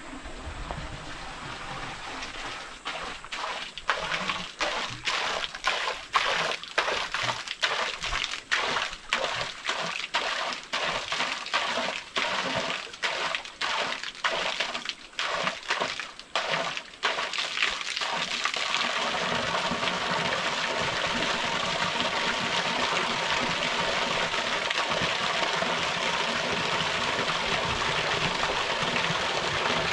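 Small waterfall splashing and rushing. For the first half the sound is broken by quick, regular dropouts about twice a second. From just past the middle it runs steady and slightly louder.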